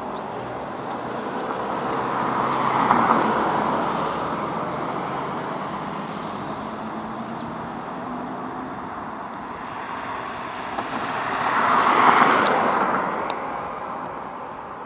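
Road traffic passing: two cars go by close, about three seconds in and again about twelve seconds in, each a rush of tyre and engine noise that swells and fades, over a steady hum of traffic.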